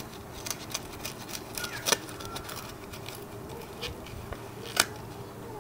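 Paper envelope of a trading-card pack being peeled open by hand: soft crackling and scattered clicks as the old, stiff glued flap comes away, with two sharper snaps, about two seconds in and near the end.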